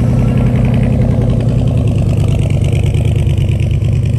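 A car engine running at low speed close by, with a steady, loud exhaust note made of fast even firing pulses.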